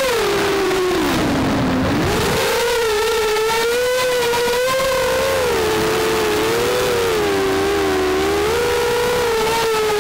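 Walkera F210 racing quadcopter's four brushless motors and propellers whining, recorded by the camera on board. The pitch drops steeply about a second in, climbs back shortly after two seconds, then keeps wavering up and down with the throttle.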